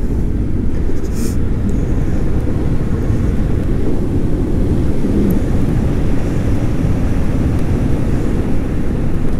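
Steady wind rush buffeting the microphone, with tyre roar, from a Delfast Top 3.0 electric dirt bike ridden at full throttle on a paved road.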